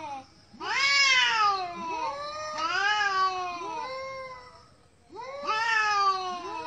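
Two domestic cats yowling at each other in an aggressive standoff: long, wavering, drawn-out calls that rise and fall in pitch and sometimes overlap. The calls pause briefly about four to five seconds in, then start again. This is threat yowling, a warning before a fight.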